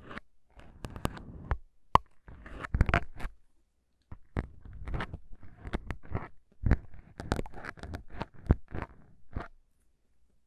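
Plastic syringes with needles handled right at the microphones: a run of crisp clicks, crackles and scratches in quick, irregular bursts, with a short pause about three and a half seconds in.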